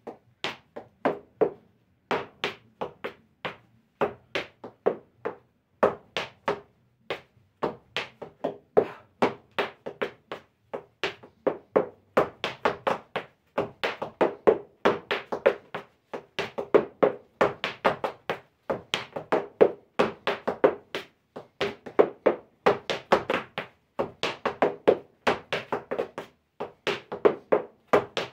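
Zapateo footwork: leather boot heels and soles striking the floor in quick rhythmic stamps and taps. The strikes grow denser and louder about twelve seconds in.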